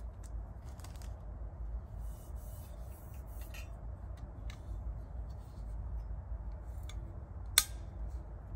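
Gear being handled by hand: faint rustles and light ticks over a low steady rumble, with one sharp click near the end.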